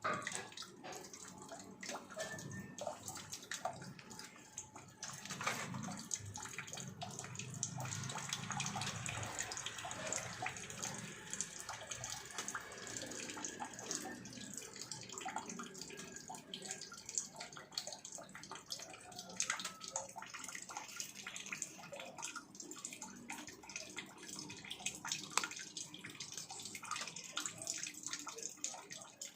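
Water running from a faucet in a steady stream, with many small irregular splashes and clicks as a cat laps at the stream.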